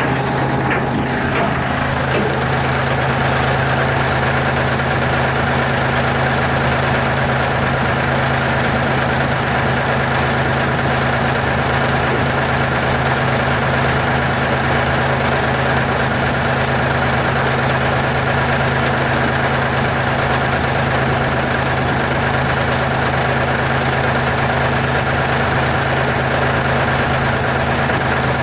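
Terex R-35 off-highway dump truck's diesel engine idling steadily, with a deep, even hum.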